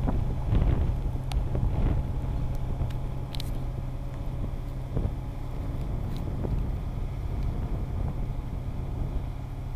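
Komatsu PC340LC crawler excavator's diesel engine running steadily, a bit louder in the first couple of seconds and then easing, with a few sharp metallic clanks.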